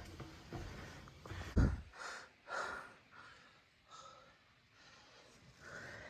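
A person breathing hard from the exertion of a steep climb, puffing out a series of short breaths. There is one low thump about one and a half seconds in.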